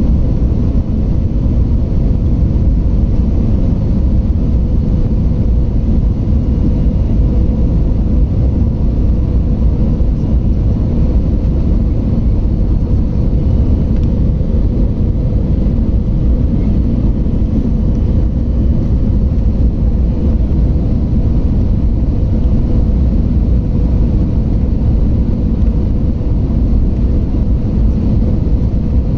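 Jet airliner cabin noise heard from inside the cabin: a steady, loud low rumble of engines and airflow with a faint constant hum, unchanging throughout.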